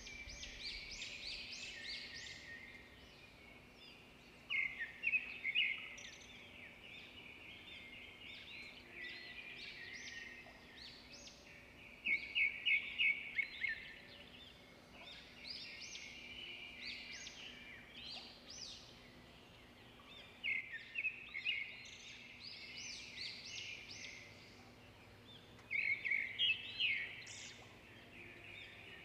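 Small birds chirping in quick runs of high notes, in bursts every few seconds, over a faint steady hum.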